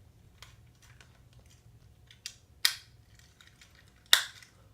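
Plastic parts of a Transformers Studio Series Ratchet figure clicking and snapping as they are moved into place by hand. Faint ticking, then three sharp snaps, the last the loudest.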